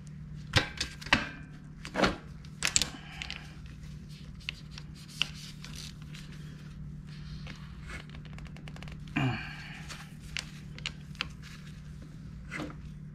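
Metal hand tools clicking and knocking against the pit bike's sprocket retaining-plate bolts and engine case, a handful of sharp separate clinks with a longer rattle about nine seconds in, over a steady low hum.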